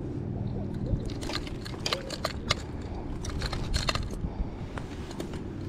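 A cluster of small sharp clicks and rustles from hands handling a rubber-mesh landing net and fishing gear, bunched in the middle seconds, over a steady low background rumble.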